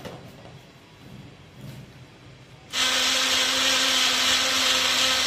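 Small electric mixer grinder switched on a little past halfway in, its motor running at a steady whirring pitch as it grinds fresh coriander, garlic and chillies into a thick chutney without water. Faint handling sounds come before it starts.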